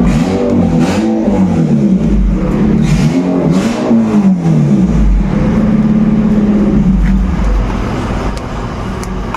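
Car engine revved through its exhaust in several quick blips, the pitch rising and falling, then held briefly at a steady higher speed before settling back lower near the end.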